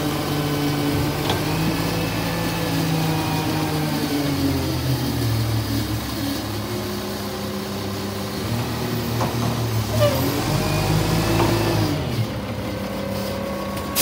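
Rear-loader garbage truck's diesel engine running close by. Its pitch rises and falls a couple of times as the truck moves off along the street.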